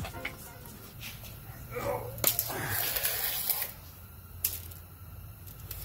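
Handling noises: a sharp click a little over two seconds in, with a short rustle and clatter around it, and another click near the end, over a steady low hum.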